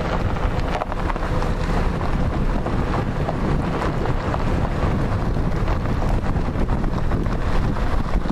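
Wind buffeting the microphone over the steady rumble of a car driving, heard from inside the moving car.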